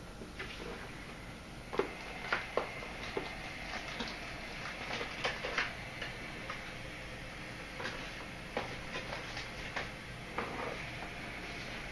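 Irregular small clicks and ticks, scattered and uneven, with a cluster of sharper ones about two seconds in and again around five seconds, over a faint steady room hum.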